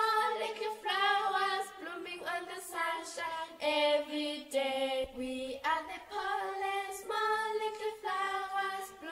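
Singing: a high voice or voices singing the melody of a children's theme song in held notes.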